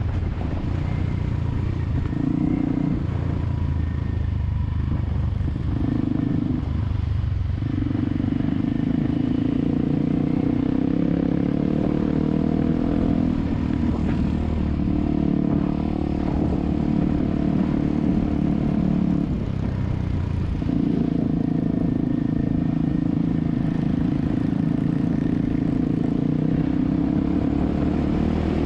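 Motorcycle engine running under way, its pitch holding fairly steady with a few brief dips and rising near the end.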